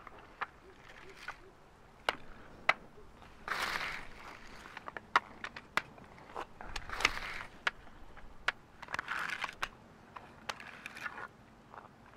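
Wooden hand boards of Tibetan pilgrims doing full-length prostrations on an asphalt road: sharp clacks as the boards strike each other and the road, and a rasping scrape each time hands and body slide forward flat across the road surface, about four times.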